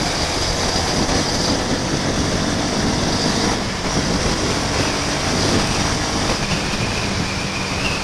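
Honda CB 250F Twister's single-cylinder engine running while riding at road speed, with steady wind rush over the microphone.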